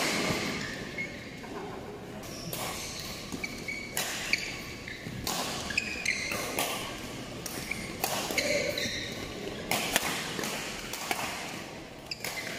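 Badminton rackets striking a shuttlecock again and again during a doubles rally, sharp hits about every second. Between them, short squeaks from court shoes on the synthetic court mat, with the echo of a large hall where other games are going on.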